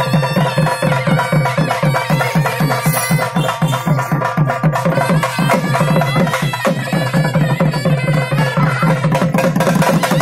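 Traditional folk music: barrel drums beaten in fast, even strokes, with a steady droning wind-instrument tone held over them.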